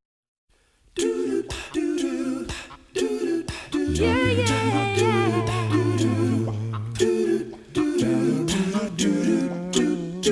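Instrumental-sounding intro of a slow ballad: layered voices hum or sing wordless harmonies over held low notes, with sharp regular clicks keeping the beat. It starts about a second in.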